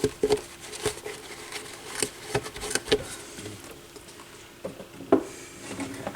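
Irregular light clicks, taps and rubbing from hand-cleaning sticky belt residue and grease off turntable parts, with a few sharper knocks along the way.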